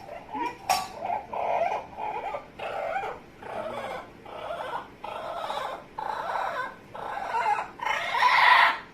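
Amazon parrot making a long run of short, repeated vocal noises, about one and a half a second, with the loudest and longest one near the end.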